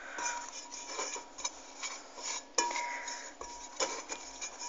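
Multicooker's metal cooking bowl being greased with a piece of butter: scattered light knocks and scrapes against the bowl. Two of them, just after the start and about two and a half seconds in, set the bowl ringing with a short clear tone.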